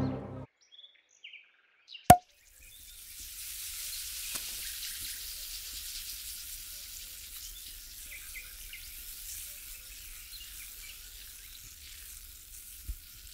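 The orchestral music stops right at the start. About two seconds in a champagne cork pops once, sharply, and then the champagne fizzes in a steady high hiss with small crackles of bursting bubbles, slowly fading.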